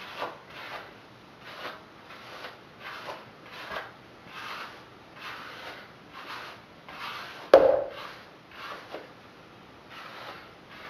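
A hairbrush drawn through set curls while brushing out a pin-curl set: short brushing strokes about twice a second. A single sharp knock about two-thirds of the way through is the loudest sound.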